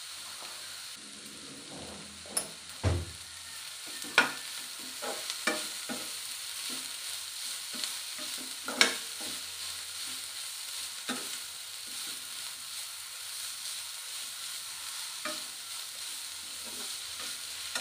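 Steel spatula stirring and scraping cooking drumstick flowers and ground coconut in a non-stick kadai, over a steady low sizzle, with irregular clicks as the spatula knocks against the pan.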